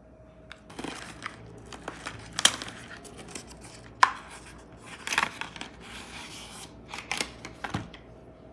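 Close handling noise: rustling and crinkling, broken by several sharp clicks or taps, the loudest about two and a half and four seconds in.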